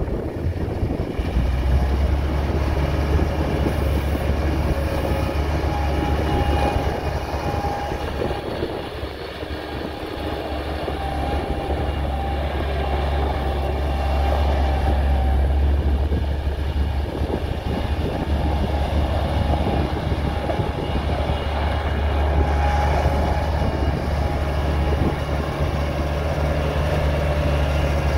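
Bobcat 753 skid steer's diesel engine running steadily with a deep hum. It eases off briefly about nine seconds in, then picks back up.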